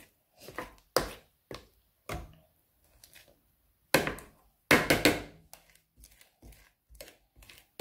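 Metal spoon scraping and knocking against the sides of a plastic mixing bowl as thick cake batter is stirred by hand: a string of irregular clacks and scrapes, the loudest about four and five seconds in.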